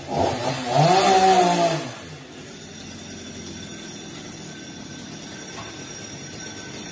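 Stihl MS 250 two-stroke chainsaw revved once, its pitch rising and then falling over about a second, then dropping back to a quieter steady idle for the rest.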